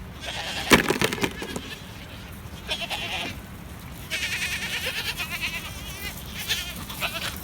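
Goats bleating in short wavering calls, with a sharp click about a second in.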